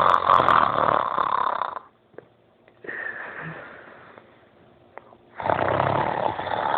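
A person snoring loudly in sleep. A long snore fades out about two seconds in, a softer breath follows, and a second long snore starts about five and a half seconds in.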